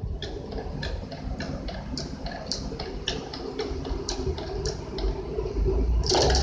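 Vintage Singer sewing machine running slowly, its mechanism clicking about two to three times a second over a low rumble; near the end it speeds up into rapid clicking.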